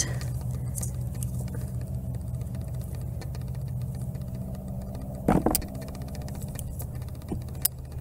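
A steady low hum runs throughout, under the faint crackle and rustle of a hand sifting through dry potato roots and loose potting soil. There is a brief louder rustling clatter about five seconds in, and a few sharp clicks near the end.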